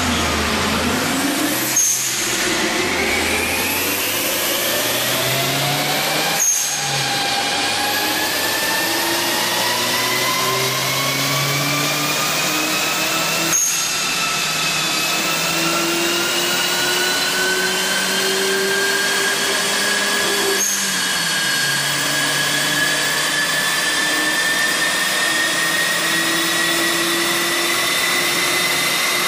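Turbocharged Kia Picanto engine pulling under load on a chassis dynamometer, its pitch rising through the gears. There are four brief gear changes, about 2, 6.5, 13.5 and 20.5 seconds in, and each gear climbs more slowly than the last.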